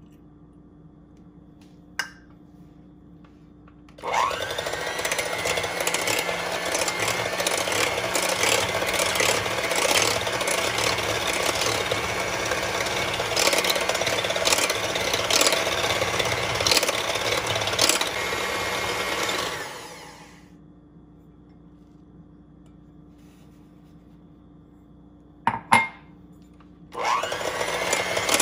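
Electric hand mixer whisking egg whites in a glass bowl. The motor spins up about four seconds in, runs steadily for about sixteen seconds and winds down. After a couple of sharp clicks it starts again near the end.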